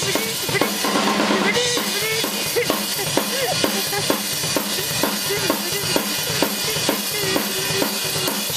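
Rock drum kit played at a soundcheck: a steady beat of bass drum and snare hits, about two strokes a second.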